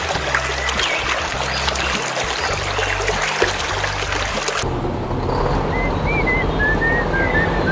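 A steady rushing, water-like noise with scattered high chirps, over a low steady hum. About four and a half seconds in it cuts off abruptly, leaving the low hum and short high chirps.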